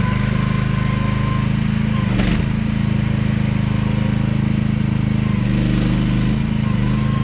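AGT QH12R mini excavator engine running steadily, with a thin whine above it. A short knock comes about two seconds in, and the engine note shifts briefly around five to six seconds in.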